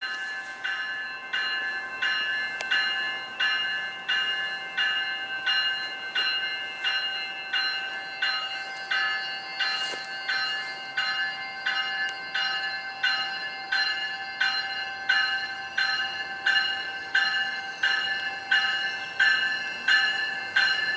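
A GO Transit commuter train's warning bell ringing steadily at about one and a half strikes a second as the train departs. It grows a little louder toward the end as the train comes closer.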